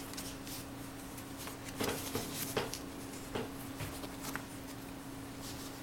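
Faint rustling and a few light clicks of paper being handled, items being taken from a mailing envelope, over a steady low electrical hum.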